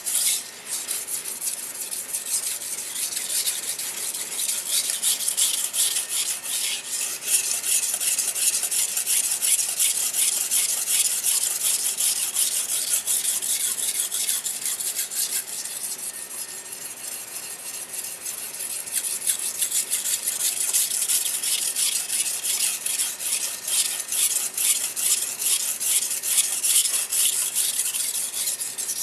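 Gyuto kitchen knife's steel edge being stroked back and forth on a 500-grit whetstone, sharpening its second bevel: a continuous scraping hiss of rapid, even strokes.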